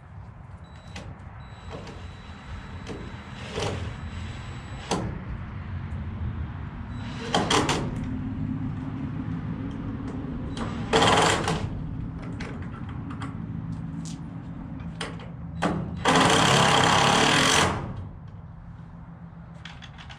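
A power drill driving screws to mount a bracket, running in several short bursts. The longest, steady burst lasts nearly two seconds near the end, with clicks and knocks of handling between the bursts.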